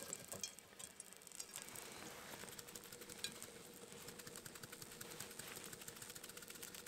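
Faint, rapid ticking and rattling from a seasoning bottle as sriracha-lime spice is sprinkled over raw fish fillets.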